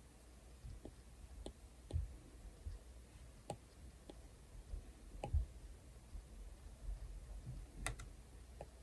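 Stylus tip tapping on a tablet's glass screen while drawing: irregular light clicks, a dozen or so.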